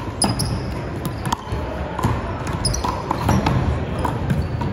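Rally of one-wall handball (wallball): a series of sharp smacks, roughly one a second, as the small rubber ball is struck by hand, hits the front wall and bounces on the wooden court, in a large sports hall.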